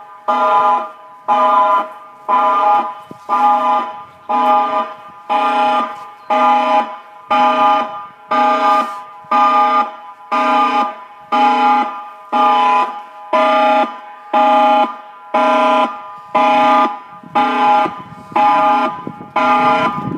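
Tsunami warning siren sounding during a test: loud, even on-off blasts a little over one a second, each blast a steady chord of several tones held together.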